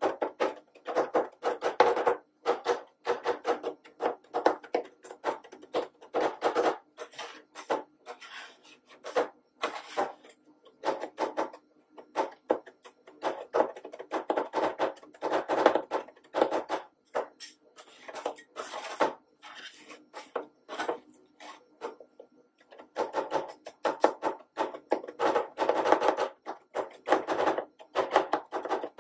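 Two steel spatulas rapidly chopping and scraping guava and a condensed-milk ice cream base on a stainless-steel cold plate for rolled ice cream. Quick runs of metallic taps and scrapes, with short pauses between runs.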